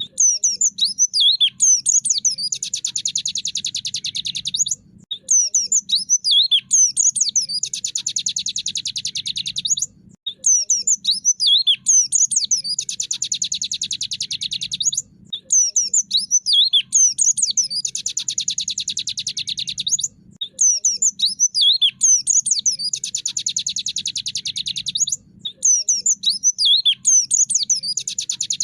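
White-eye (pleci) song looped as a tutoring recording. Each phrase is a burst of quick, varied high whistles followed by a long, rapid buzzing trill, the 'tractor' rattle, and the phrase repeats about every five seconds.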